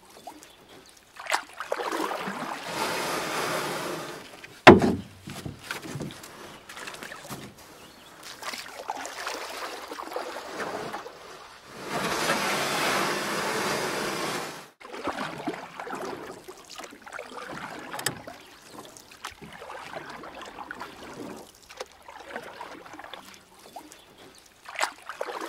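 Harbour water and wind noise as a hiss, in stretches that start and stop suddenly. There is a single sharp knock about five seconds in, the loudest sound, and a few small clicks.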